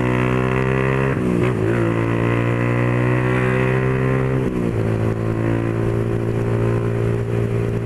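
Motorcycle engine running under throttle, its pitch climbing slowly, with a brief dip about a second in and a step down about four and a half seconds in, typical of gear changes.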